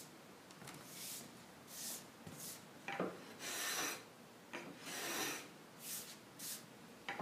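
Japanese hand plane (kanna) shaving the face of a solid single-slab wooden tabletop, in a series of separate scraping strokes roughly one or two a second, a few of them longer.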